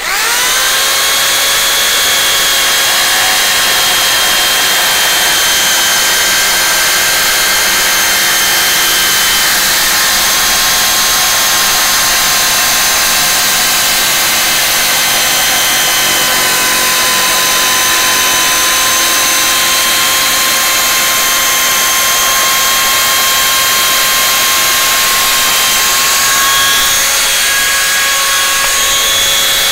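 Parkside PSTK 800 C3 800 W barrel-grip jigsaw starting up with a short rising whine and then running steadily while cutting a curve, most likely in wood.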